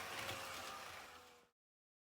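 HO-gauge model train running, its motor giving a faint whine under a steady hiss, the motor noise the repair is meant to cure; it fades and stops about one and a half seconds in.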